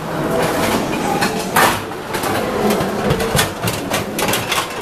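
Stainless steel food trays clattering as they are tossed onto a pile of trays in a bin: a series of sharp metal clanks, the loudest about a second and a half in and a quick run of them near the end.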